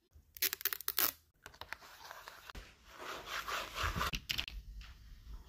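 Sheets of a paper pad rustling and flicking with a quick run of crisp crackles, then a hand rubbing back and forth across the paper with a rough, scratchy hiss.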